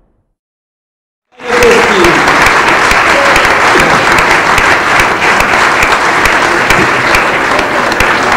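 An audience applauding: dense, steady clapping that starts suddenly about a second and a half in, after a moment of silence.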